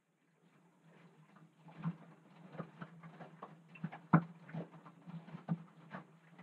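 Front-loading washing machine in its wash cycle: the drum starts turning about half a second in, with a steady motor hum under irregular soft thuds and splashes as wet laundry tumbles and drops through the water.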